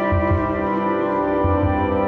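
Background music: sustained chords, with a low pulse near the start and again about a second and a half in.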